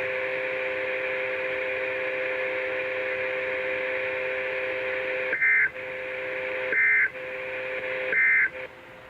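NOAA Weather Radio's Emergency Alert System end-of-message code: three short screechy bursts of digital data, roughly a second and a half apart, marking the end of the weekly test. Before them the radio carries a steady hiss with a low buzzing hum, and the signal drops away right after the third burst.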